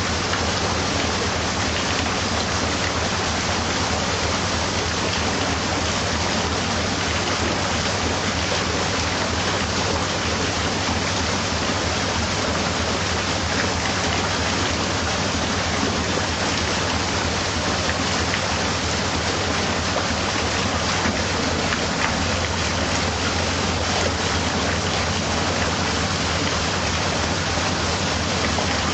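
Water rushing steadily through the paddles of a canal lock as the chamber is filled or emptied around a narrowboat, with a steady low hum underneath.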